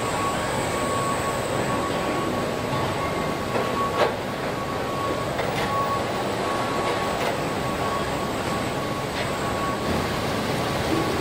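Car assembly-plant machinery noise: a steady mechanical din with a constant high whine and a few scattered clanks, the sharpest knock about four seconds in.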